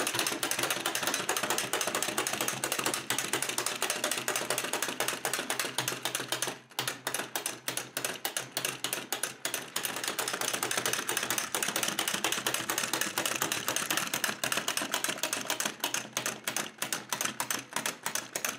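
Tin clockwork jumping rabbit toy running: its wind-up spring mechanism gives a fast, dense clatter of clicks as it hops, with a brief break about six and a half seconds in. Near the end the clicks come further apart.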